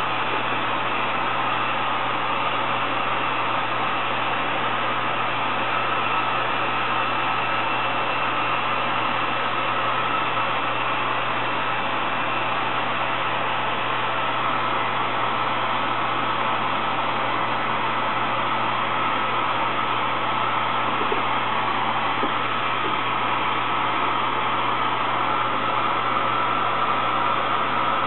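Steady whirring and blowing of small hand-held dryers held over freshly painted denim, with a faint constant whine.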